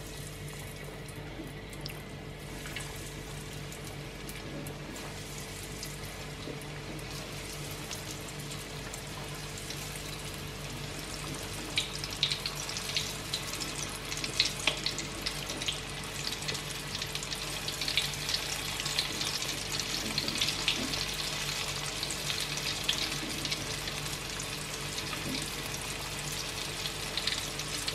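Tapioca-coated snapper pieces deep-frying in hot oil in a wok: a steady sizzle that grows denser, with many more crackles and pops from about twelve seconds in as more pieces go into the oil.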